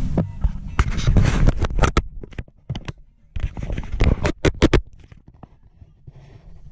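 A run of irregular scrapes and clicks, like close handling noise, dense for about the first five seconds and then dying away to quiet.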